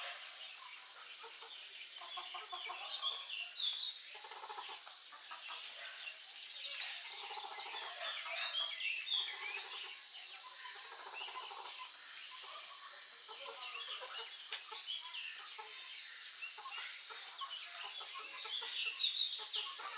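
Steady high-pitched insect drone, with many short bird chirps and clucking calls over it.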